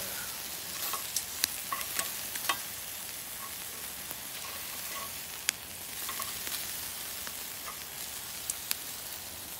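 Pork pieces sizzling on a charcoal kettle grill: a steady hiss with scattered sharp pops and clicks, while metal tongs turn the meat on the grate.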